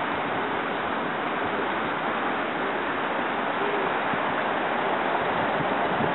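Steady roar of city street traffic, with cars passing.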